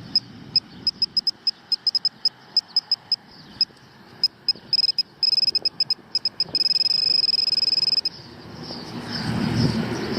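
Handheld XP MI-6 pinpointer beeping while being worked through the dug soil: irregular short high beeps, coming in quicker runs, then one steady tone for about a second and a half that cuts off about eight seconds in. The steady tone is the pinpointer sitting right on a metal target.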